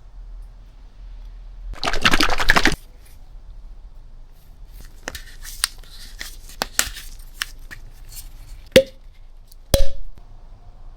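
Handling noises while engine oil is added: a rustling noise lasting about a second, then scattered light clicks and two sharp knocks about a second apart, each knock with a short ring.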